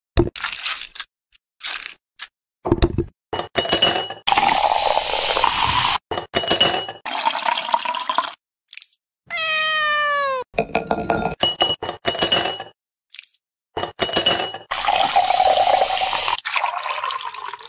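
A cat meows once, a long meow falling in pitch, about ten seconds in. Around it, ice cubes and lemon slices clatter into a glass, and a drink pours and fizzes over the ice twice, near the start and again near the end.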